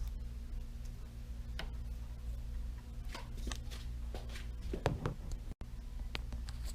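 Faint scattered clicks and rustles of a latch hook and hair being handled while a small piece of hair is hooked through a wig cap, over a steady low hum.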